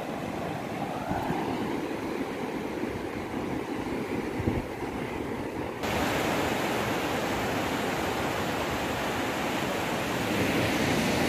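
Surf breaking on a sandy beach: a steady rushing noise. About six seconds in it changes abruptly and becomes louder and brighter.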